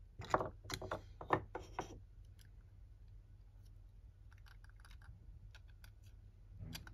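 Small plastic Gator Panic gashapon toys being picked up and handled: a quick run of loud plastic clacks and knocks in the first two seconds, then light clicks as fingers turn a toy over, and one more clack near the end.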